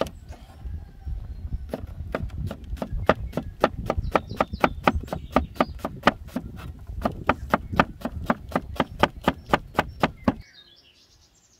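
A large cleaver chopping an onion on a wooden cutting board: a steady run of crisp knocks, about three to four a second, that stops about ten seconds in.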